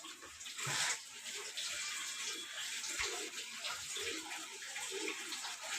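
Water running and splashing in a washing machine's tub, a steady hiss with a few faint knocks.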